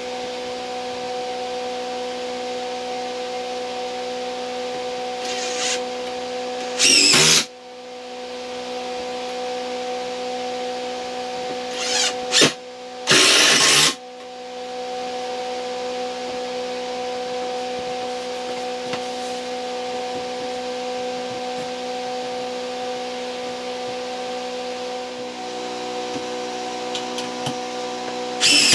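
Yellow cordless drill/driver driving screws into 2x4 framing in short runs: one about a quarter of the way in, two close together around the middle, and one at the very end. A steady hum runs underneath throughout.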